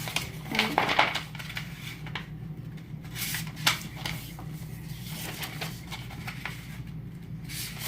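Sheets of paper being handled and folded: scattered short rustles and taps, a cluster about a second in and a few more later, over a steady low hum.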